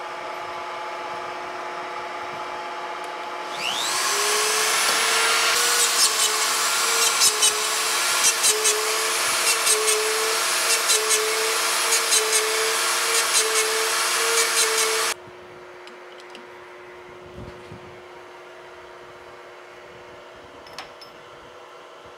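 Metabo grinder with a mounted stone, fixed to a metal lathe, grinding in the jaws of a slowly turning six-jaw chuck. A steady motor hum rises in pitch a few seconds in and gives way to loud grinding, with a wavering whine and scattered sharp ticks as the stone meets the jaws. The grinding cuts off abruptly about fifteen seconds in, leaving a quieter steady machine hum.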